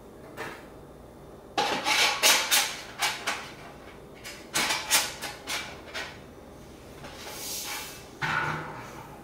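Stainless steel grain basket and perforated plate of an Anvil Foundry brewing system clanking as they are handled and fitted together: a quick run of metallic knocks and clatters, a soft brushing sound, then one more knock near the end as the basket is set down.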